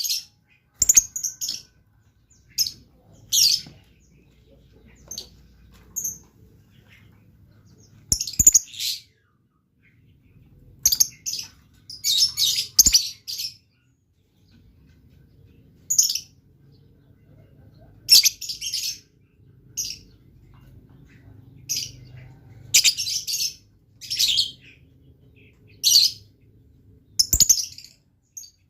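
Lovebird giving short, shrill, rapid chirping bursts every second or two, a few of them running on for about a second. A few sharp clicks fall between the calls.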